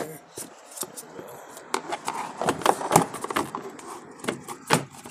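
Irregular clicks, taps and scraping of a metal hook tool working behind the plastic windshield cowl of a 2022 Ford Maverick, prying at its retainer clips. A denser stretch of scraping and rattling comes in the middle.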